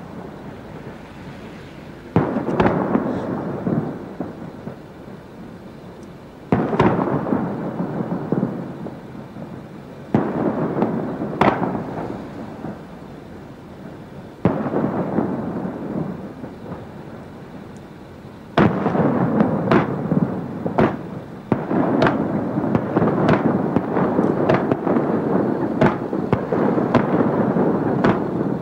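Aerial fireworks display: loud bangs about every four seconds, each trailing off over a few seconds, then in the last third a rapid barrage of bangs and sharp crackling.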